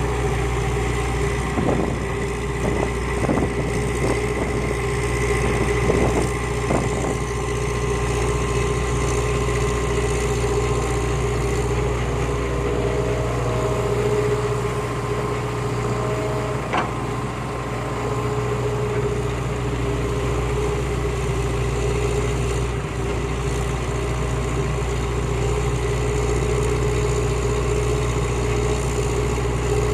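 Heavy diesel engine of earthmoving machinery running steadily with a constant hum, with a few short knocks in the first several seconds and a single sharp click about halfway through.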